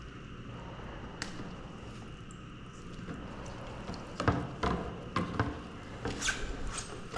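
A steady low hum with scattered light clicks and taps: a single sharp click about a second in, then a quicker run of small knocks in the second half.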